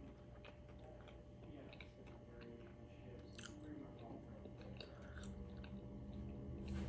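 A person chewing food close to the microphone, faint, with soft wet mouth clicks and a few crisper crunches about halfway through.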